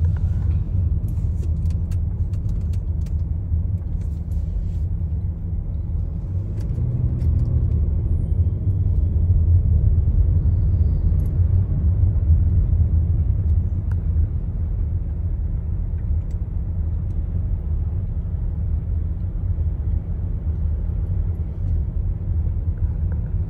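Steady low rumble of a car heard from inside the cabin as it moves in heavy highway traffic: road and engine noise, swelling a little near the middle, with a few light clicks in the first few seconds.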